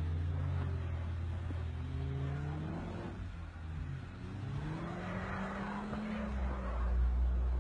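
Car engine revving under load as an Audi A4 Quattro tows a stuck BMW out of deep snow. The pitch rises about three seconds in and holds high, and spinning wheels throw snow with a hiss around five seconds in.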